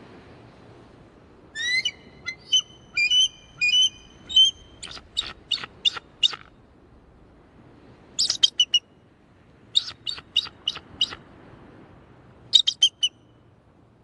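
Bald eagle calling: bouts of high, thin piping notes in rapid series, five bouts in all, the first starting about a second and a half in.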